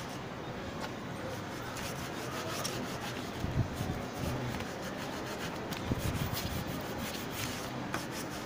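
Cloth rubbed by hand over a glued paper cover on pasteboard, pressing it down: a continuous dry rubbing, with a couple of dull thumps on the table about halfway through.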